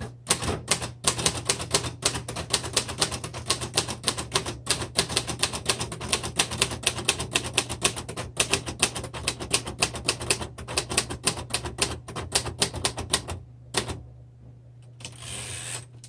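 Royal Heritage III manual typewriter being typed on quickly, a rapid, steady run of typebar strikes for about thirteen seconds, then a single keystroke. Near the end the carriage is thrown back with a short sliding sound.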